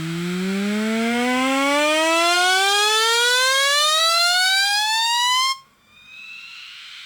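Electric razor buzzing with a strong hum that rises steadily in pitch for about five and a half seconds, then cuts out abruptly, leaving a fainter, higher buzz.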